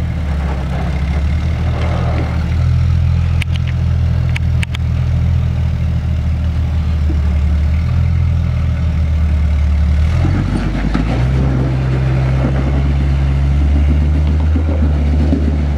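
A lifted Jeep's engine running at low revs as it crawls over rock ledges, with a few sharp clicks about four seconds in. About ten seconds in the engine note shifts and grows busier as it pulls up the ledge under load, the rear tyre spinning in the dust.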